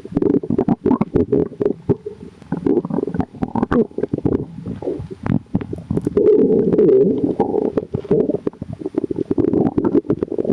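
Human stomach growling and gurgling: a continuous bubbly rumble full of small pops, swelling louder about six seconds in.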